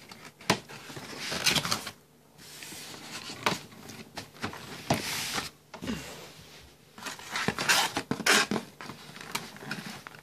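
Cardboard box being opened by hand: flaps pulled back and bent, cardboard scraping and rustling, with a string of sharp snaps and knocks.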